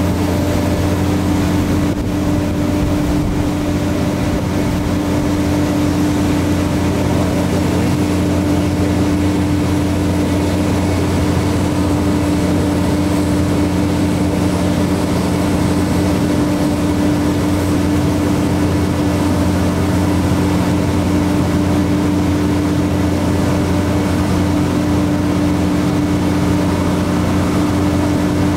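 Loud, steady engine drone with a low hum that holds level throughout, without rising or falling.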